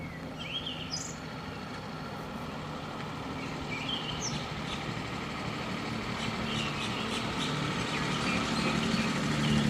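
A car engine running steadily, growing louder toward the end, with birds chirping several times.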